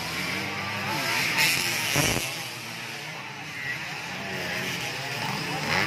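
Motocross dirt bike engines revving up and down as bikes ride through a muddy section of track, with onlookers' voices over them.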